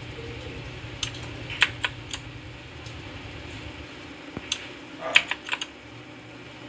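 Keys pressed on an HP GK100 mechanical keyboard with brown switches: about a dozen separate keystrokes in small irregular groups, not continuous typing.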